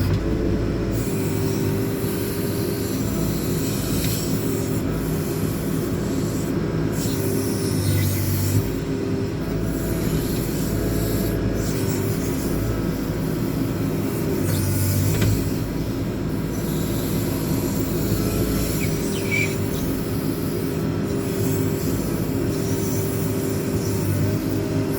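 JCB 4CX backhoe loader's diesel engine running steadily under hydraulic load with a whine as the rear backhoe boom works. The engine note dips and recovers several times, with heavier surges about eight and fifteen seconds in.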